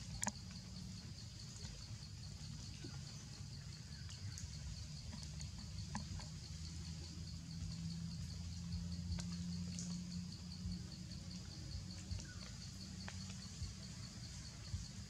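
Insects chirring in a steady, finely pulsing chorus, with scattered light crackles of dry leaves and twigs and a low background hum underneath.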